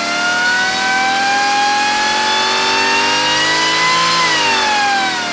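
Supercharged 6.6-litre GM L8T V8 with a Harrop TVS2650 top-mount supercharger running on an engine dyno, its revs climbing steadily through a pull and then dropping away about four seconds in as the throttle comes off.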